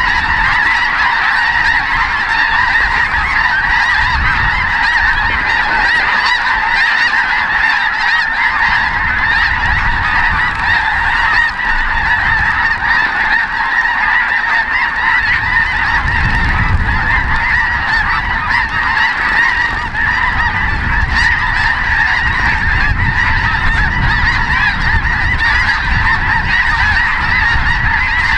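A large flock of snow geese calling overhead: a dense, unbroken din of many overlapping high-pitched honks. A low rumble comes and goes underneath, mostly in the second half.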